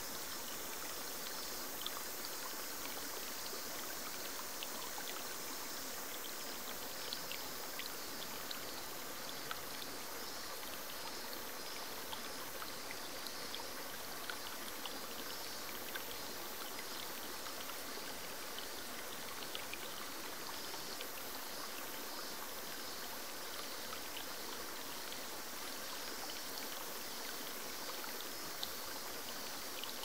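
Small forest waterfall splashing steadily over rocks into a pool, with many small splashes and drips ticking through the rush of water.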